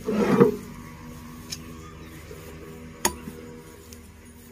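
Oil palm fruit bunches being handled: a short rustling thump at the start, then a single sharp click about three seconds in, over a faint steady hum.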